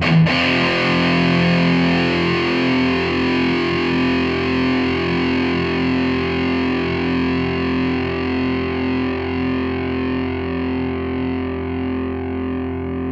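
SG electric guitar chord struck once and left to ring, slowly fading, distorted by a breadboard circuit with a 2N5088 transistor stage and diode clipping, heard through a mic'd small 30-watt bass amp. The distortion is smooth and even, with pretty good sustain.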